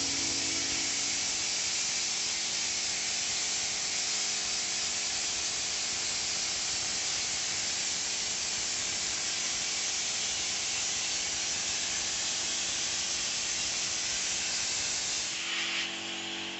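Compressed-air hopper spray gun spraying cork coating onto a wall: a steady hiss of air and atomised material that eases off near the end.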